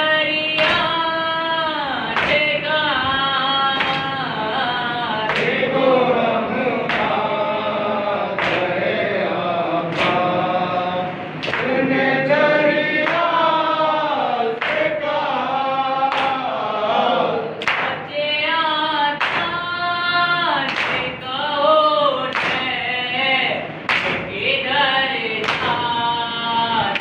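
A nauha, a Shia mourning lament, chanted unaccompanied by male voices. Sharp slaps come roughly once a second, the beat of matam, hands striking chests in time with the lament.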